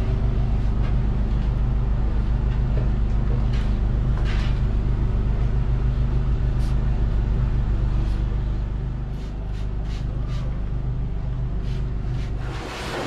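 Steady low mechanical hum of a running motor, easing slightly about two-thirds of the way through. Just before the end a pet blow dryer switches on with a loud rush of air.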